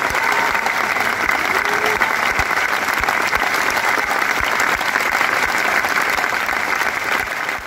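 Large concert audience applauding steadily, with some voices among the clapping.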